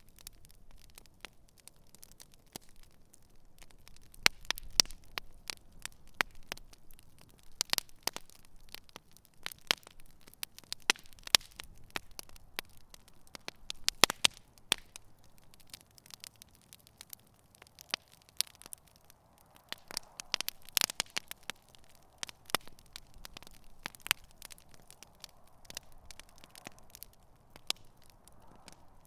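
Wood campfire burning: irregular sharp crackles and pops over a faint low hiss, with a soft hissing rising somewhat in the latter part.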